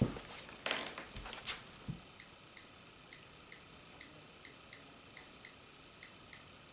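A few handling bumps and rustles, then a long run of faint, evenly paced clicks, about three a second: the iPod Touch's on-screen keyboard clicking as a Wi-Fi password is typed in during setup.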